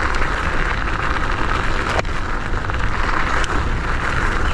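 MS Energy X10 electric scooter's tyres rolling over loose gravel: a steady crunching hiss over a low rumble, with one sharp click about two seconds in.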